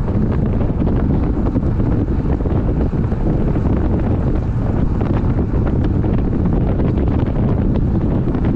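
Heavy, steady wind rumble on the microphone of a road bike riding at about 45 km/h.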